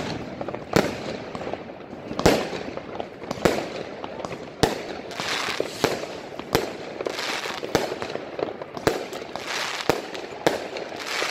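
Fireworks going off in a steady volley: a sharp bang about once a second, about ten in all, with crackling between the bursts.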